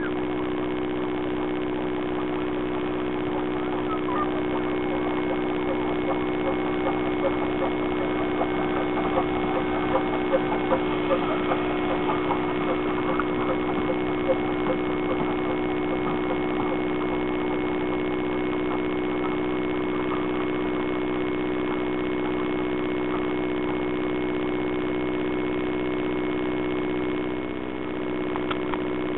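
LBSCR A1X 'Terrier' tank engine working past under steam, its rhythmic exhaust beats building to loudest in the middle and fading away, over a steady hum throughout.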